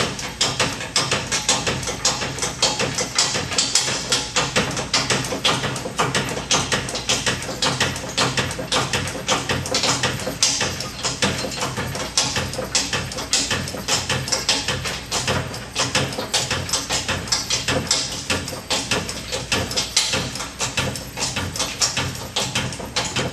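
Hand-operated hydraulic lift pump on a dump trailer being worked by its lever, with rhythmic clicking and squeaking strokes about two a second, as the pump raises the trailer bed.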